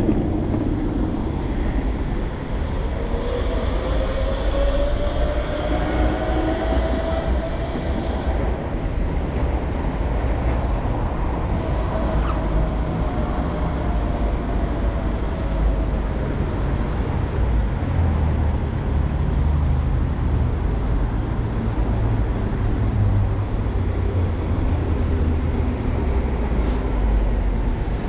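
Street traffic on a city street: vehicles passing steadily, with a rising motor whine twice in the first half and a deeper rumble of a heavy truck in the last ten seconds.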